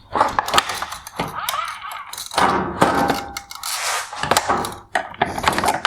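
Hard plastic and metal parts of an LED headlight knocking, clinking and scraping as they are handled and taken apart, with a string of sharp clicks and thunks.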